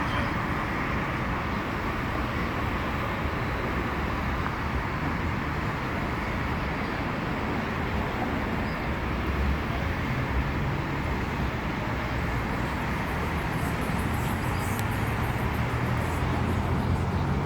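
Steady road traffic noise from passing cars, with a low engine hum coming up in the second half.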